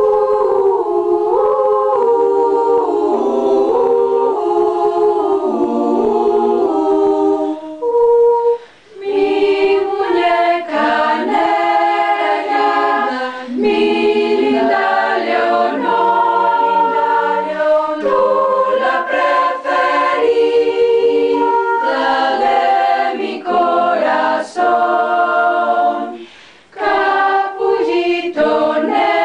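Small a cappella choir singing in several parts, without instruments, with short breaks between phrases.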